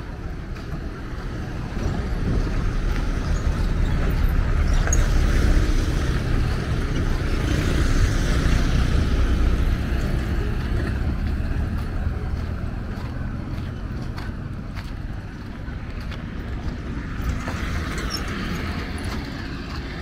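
Cars and minibuses driving past on an unpaved dirt road, with engine and tyre noise. The noise swells as a vehicle passes close about five to nine seconds in, then fades, and rises a little again near the end.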